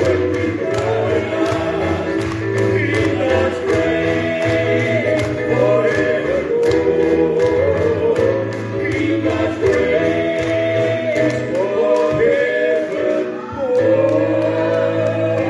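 Live gospel song: a woman and two men singing together in harmony into microphones, over electronic keyboard accompaniment with a steady bass and beat.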